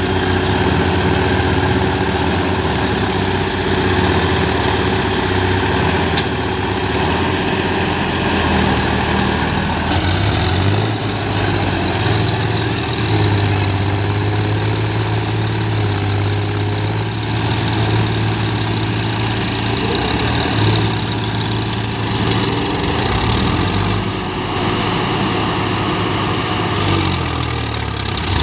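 Two diesel tractor engines working under load as a Swaraj 855 FE tows a Massey Ferguson 245 with a rotavator out of deep mud. The engine note rises about ten seconds in, wavers up and down for several seconds, and drops back near the end.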